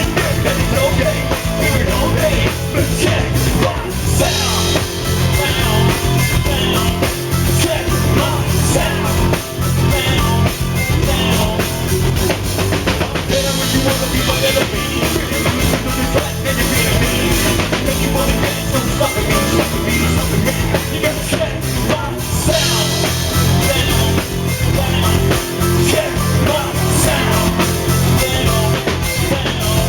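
Rock band playing live, with a drum kit and bass keeping a steady beat, in a stretch without clear sung words.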